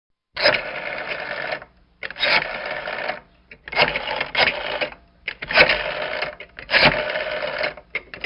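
Mechanical telephone bell ringing in five short rattling bursts of about a second each, with brief pauses between them.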